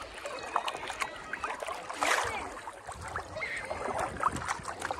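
Sea water lapping and sloshing close to the microphone as a person wades through the sea, with many small irregular splashes and drips.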